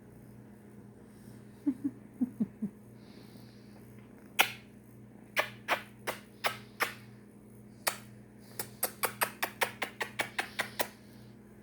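A kitten purring, low and steady, with a few short squeaky chirps about two seconds in. From about four seconds in come sharp smacking kiss sounds, scattered at first, then a quick run of about five a second near the end.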